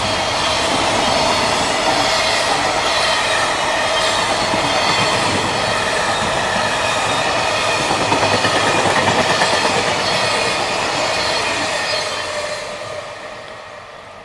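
Freight train of container and tank wagons rolling past, a steady loud clatter of wheels on rail; the noise fades away over the last couple of seconds as the end of the train moves off.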